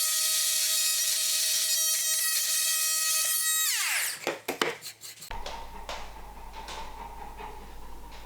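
Electric power tool running at a steady high whine, then released and spinning down with falling pitch about four seconds in. A few sharp clicks and knocks follow, over a low steady hum.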